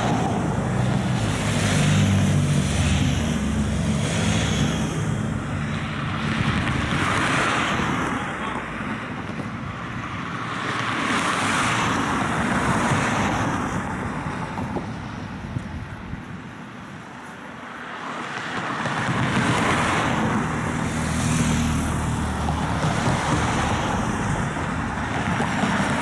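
Race-convoy cars and motorcycles passing close by one after another, about five passes, each swelling and fading. Engine hum is strongest in the first few seconds and again about twenty seconds in, with a brief lull just before.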